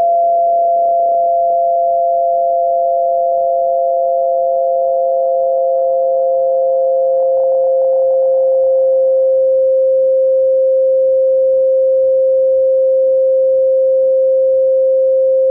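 Two steady electronic sine tones for tinnitus masking, sounding together a little apart in pitch. About two-thirds of the way through, the higher tone fades out and leaves the lower tone sounding alone.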